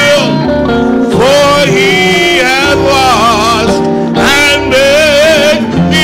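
A man singing a slow gospel song in long held notes with a wide vibrato, accompanied by electric guitar and keyboard.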